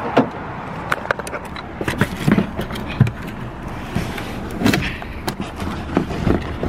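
Packing tape being worked around a parcel: irregular knocks and taps of handling, with a few short rasps of tape pulling off the roll.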